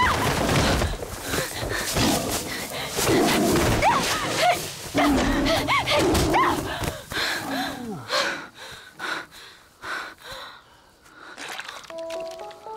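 Sound of a fight struggle: cries and growls with repeated blows and thuds. They thin out to scattered hits after about eight seconds, and music with held notes comes in near the end.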